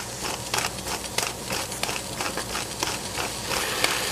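Hand-twisted spice grinder grinding seasoning over a pot of cut vegetables: a quick, irregular run of crisp crunching clicks.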